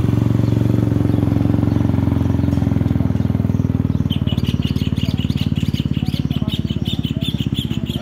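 Motorcycle engine idling loudly with an even, fast throb. From about halfway a bird chirps over it again and again.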